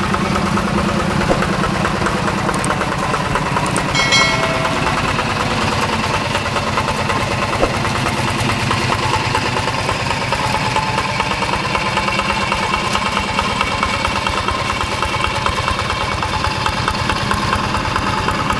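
Yanmar TF85 single-cylinder diesel of a two-wheel hand tractor running steadily while the tractor works through paddy mud, a fast, even chug. A short high-pitched tone cuts in briefly about four seconds in.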